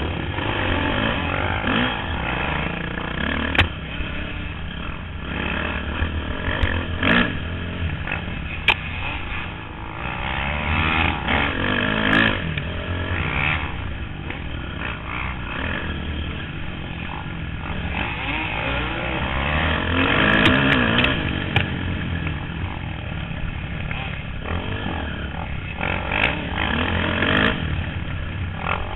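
Dirt bike engine running hard and revving up and down through the gears on a rough trail, close up, with a few sharp knocks and clatter from the bike over the terrain.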